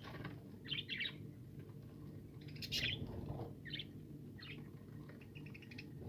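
Budgerigars chirping: short scattered chirps every half second or so, the loudest about halfway through, over a low steady background hum.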